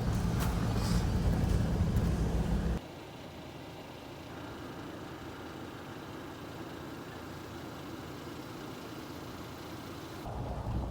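Toyota Hilux driving, a steady low engine and road rumble. About three seconds in it cuts abruptly to a much quieter steady hiss, and the rumble comes back near the end.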